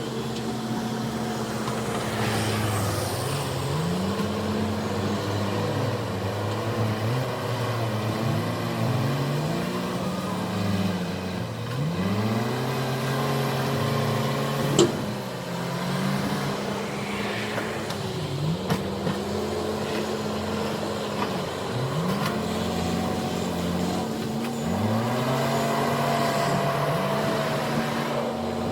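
JCB 4CX backhoe loader's diesel engine working under load. Its pitch repeatedly sags and climbs back every few seconds as the hydraulics dig. A single sharp knock sounds about halfway through.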